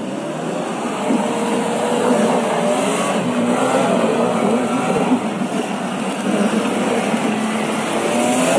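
Mitsubishi Pajero SUV's engine revving up and down under load as it claws through a deep muddy rut, its pitch wavering and never settling.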